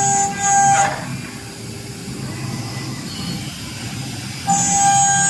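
Double-spindle CNC router running, its spindles giving a steady high-pitched whine over a hum and hiss. About a second in the whine falls away, leaving the quieter hum and hiss, and it comes back near the end.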